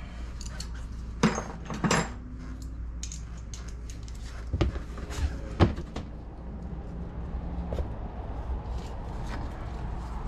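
Hand tools and bolts clinking and knocking against the engine's intake manifold, with a few sharp knocks between about one and six seconds in, over a steady low hum.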